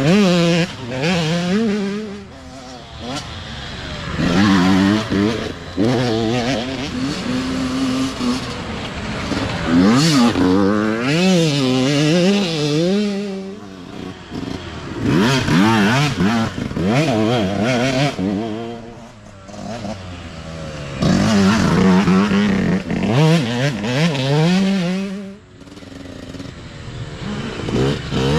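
Youth dirt bikes passing one after another, their engines revving up and down as the riders work the throttle. Each pass swells loud and fades, several times over.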